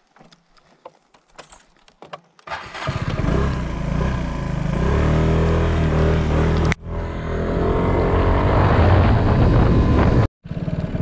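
Motor scooter engine starting suddenly about two and a half seconds in, after a few faint clicks, then running loud as the scooter pulls away and rides on. The sound cuts out briefly twice, once in the middle and once near the end.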